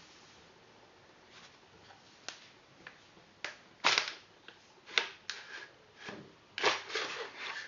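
A series of irregular sharp clicks and clacks, like hard parts being handled and fitted together. They grow more frequent after the first two seconds, with the loudest about four seconds in and a cluster of several near the end.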